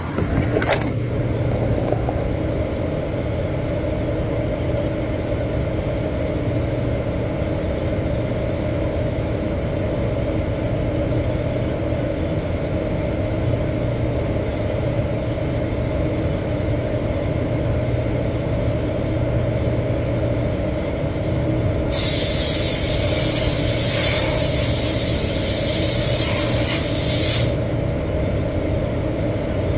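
Steady low drone of a spray booth's ventilation, with hand sanding of a cabinet door under it. About 22 seconds in, a loud hiss of compressed air from an air hose runs for about five seconds and cuts off.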